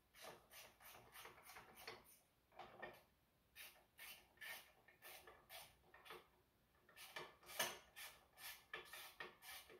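Faint, irregular scraping and light clinking of hand tools working on metal, about two short strokes a second, with one louder stroke about three quarters of the way through.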